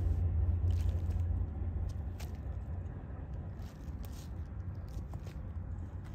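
Thick-soled white sneakers shifting and stepping on muddy ground: a handful of short separate scrapes and squishes, over a steady low rumble.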